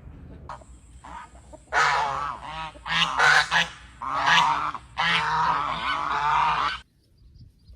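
Goose honking: a run of loud, harsh calls in several bursts, ending abruptly about a second before the end.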